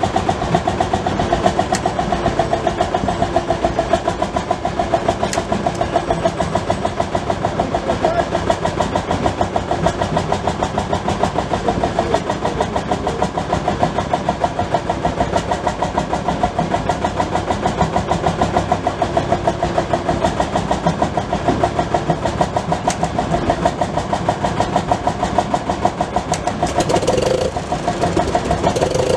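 An old tractor engine running steadily, with an even, rapid firing beat.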